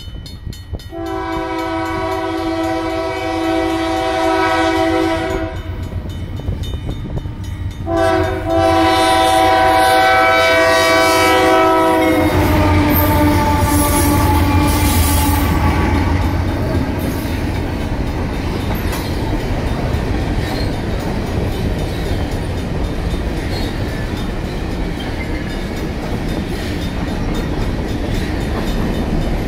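Horn of a Norfolk Southern GE AC44C6M diesel locomotive, sounding two long blasts and then a third that falls slightly in pitch as the locomotive passes close by with a heavy engine rumble. After that come covered hopper cars of a grain train rolling over the crossing with a steady rhythmic wheel clatter.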